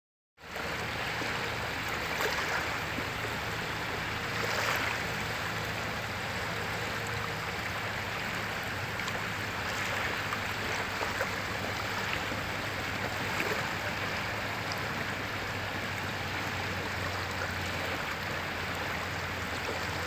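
Small sea waves lapping and washing in the shallows: a steady rush of surf, a little louder as waves break about two and five seconds in.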